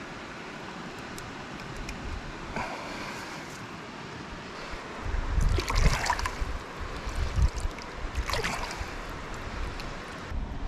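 Water splashing and sloshing as hands rinse a freshly gutted rainbow trout in a stream, starting about halfway through, loudest near the middle and again a couple of seconds later. Before that, only the steady sound of the flowing stream.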